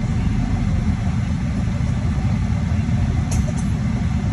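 Steady low rumble of a car's engine and running gear, heard from inside the cabin.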